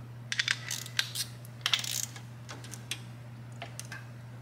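Steel hand tools clinking and clicking: a socket pulled from a socket rail and fitted to a ratchet, then set onto a cam sprocket bolt to break it loose. The clicks come in quick clusters in the first two seconds, then a few scattered ticks.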